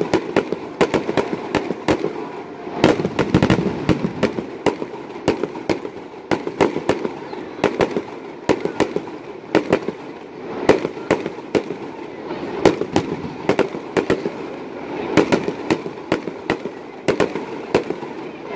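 Aerial fireworks bursting overhead: a long run of sharp bangs at uneven intervals, some coming in quick clusters.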